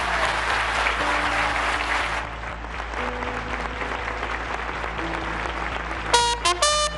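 Audience applauding, heaviest in the first two seconds and then lighter. Near the end, music starts with short, clipped, repeated notes over the clapping.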